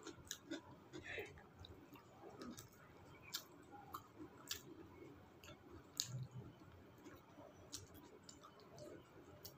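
Faint eating sounds: a person chewing rice and chicken curry, with soft mouth clicks scattered about once a second, the sharpest about six seconds in.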